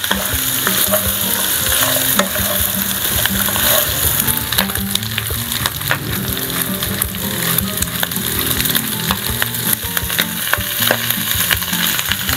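Pork belly chunks frying in hot oil in a non-stick wok, a steady sizzle full of small pops and crackles.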